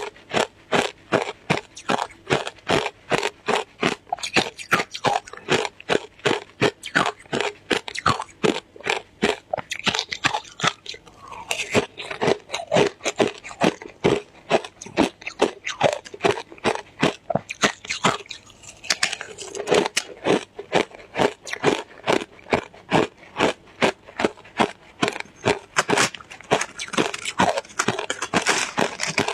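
Shaved ice being chewed, a close, steady run of crunches at about three a second, easing briefly twice.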